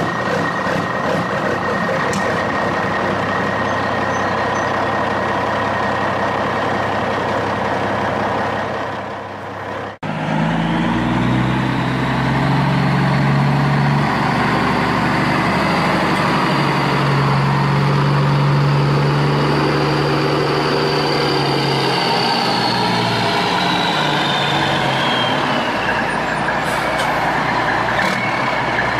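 Sound effect of a large truck engine running steadily. About ten seconds in it cuts abruptly to another truck recording with a deeper engine note.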